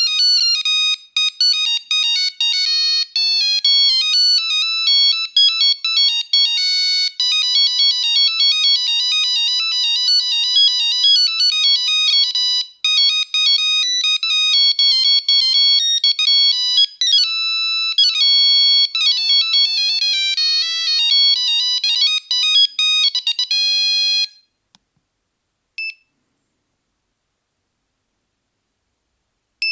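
Nokia 3310 monophonic ringtone playing a quick melody of beeping notes, with a few sliding pitches in its later part. It stops about 24 seconds in, and a single short beep follows near the end.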